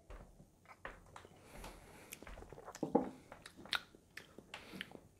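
Faint sipping and swallowing of a mouthful of whiskey, with small wet mouth sounds and light clicks, the loudest about three seconds in. A small tap as the glass tasting cup is set down on a wooden barrel top.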